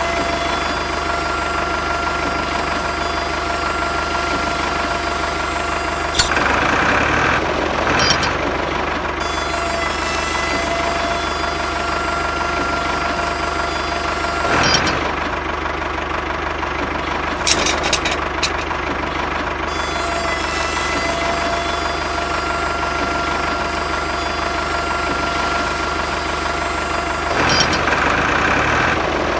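Tractor engine idling steadily at an even pitch, with a few short louder sounds on top, near 7, 15 and 18 seconds in and again near the end.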